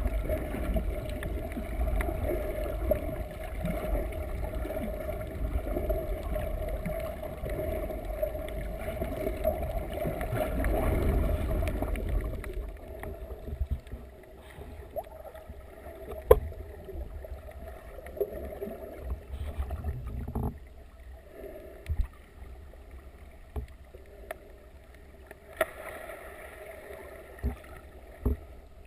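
Underwater sound picked up through a GoPro's waterproof housing: a muffled low rush of water that drops to a quieter hiss about twelve seconds in, with scattered sharp clicks in the quieter part.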